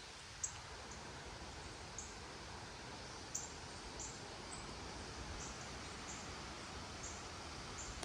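Hurricane winds blowing steadily, with short high chirps every second or so over the wind.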